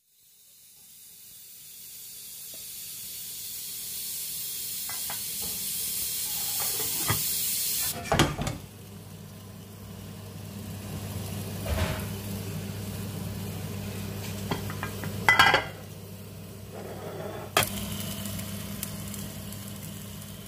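Fish curry sizzling in a steel pan on a low gas flame: a steady hiss that swells over the first several seconds, with a few sharp knocks now and then.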